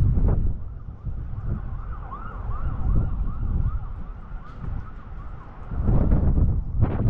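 Wind buffeting the microphone in gusts, with a faint repeated rising-and-falling tone, about three a second, in the background for a few seconds.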